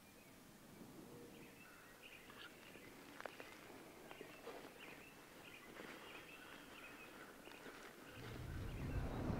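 Faint outdoor ambience with scattered bird chirps. A low rumble builds up over the last second or so.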